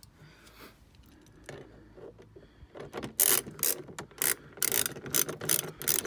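Faint handling noise, then from about halfway a ratchet wrench clicking in repeated short bursts, about two a second, as it runs a bolt back in.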